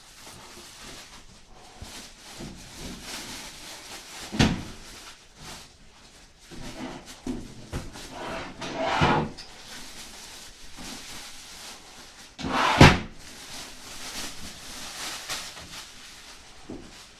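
Unpacking and handling of a mid-tower PC case and its packaging: rustling, scraping and bumping, with two sharp knocks about four seconds in and near the thirteen-second mark, the second one the loudest.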